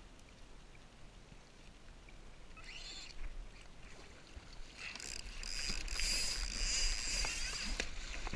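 Paddle blade dipping and splashing in choppy sea water, the splashing getting louder about halfway through as paddling starts, over wind rumbling on the microphone.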